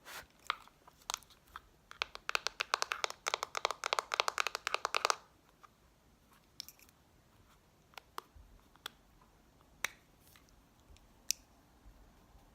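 Makeup items handled close to the microphone: a few single clicks, then a quick run of light clicks, about nine a second, for some three seconds, then single clicks every second or so.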